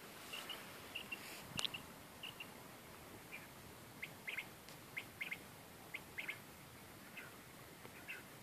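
A bird calling in short, faint, high chirps, mostly in groups of two or three notes about a second apart. A single sharp click sounds about a second and a half in.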